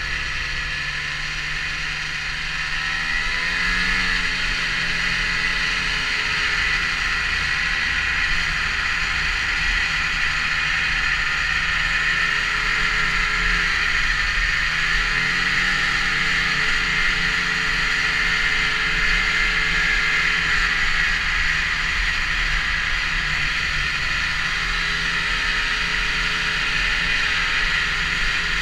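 Snowmobile engine running under way, its pitch rising and falling several times as the throttle changes, over a steady hiss; it gets louder about three seconds in.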